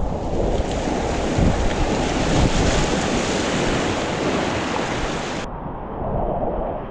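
River rapids: whitewater rushing around a kayak paddling through it, with wind buffeting the microphone. The sound turns suddenly duller about five and a half seconds in.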